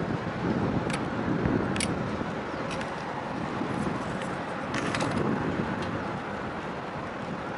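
Steady outdoor rumble with wind buffeting the microphone, broken by a few light metallic clicks and jingles about one and two seconds in and again around five seconds.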